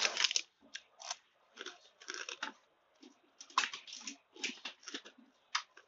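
A person chewing crunchy food with a closed mouth right at the microphone: irregular crunches in quick clusters.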